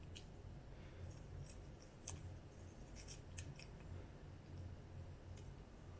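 Faint, scattered small ticks and crackles of sticky tape being pressed onto and pulled off a phone battery to pick up shards of broken screen glass.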